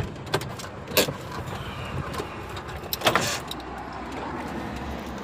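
Car engine idling in a steady low rumble, with a few sharp clicks and knocks from the car's doors or fittings being handled, the loudest about three seconds in.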